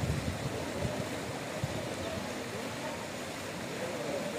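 Floodwater rushing and gushing in a steady wash of noise, with a few low thumps in the first second.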